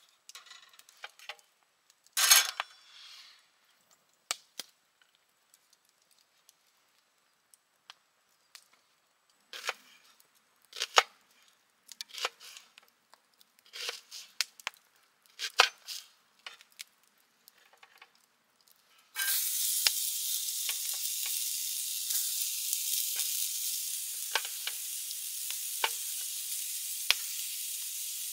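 Scattered clicks and knocks of cooking gear being handled, then about two-thirds of the way in food goes into a hot pan and starts to sizzle, a steady hiss with small pops.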